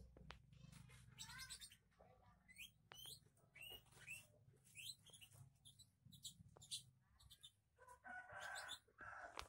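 Faint chirping of small birds: many short, quick calls repeated throughout, with a few light clicks.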